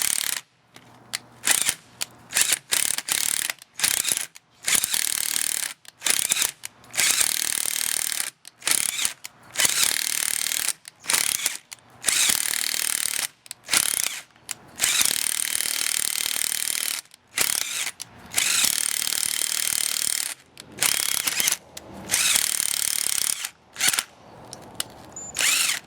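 A 20 mm by 2.5 pitch thread tap being driven through a bolt hole in an excavator final drive, re-cutting the threads. The tool runs in repeated bursts of one to two seconds with short pauses between.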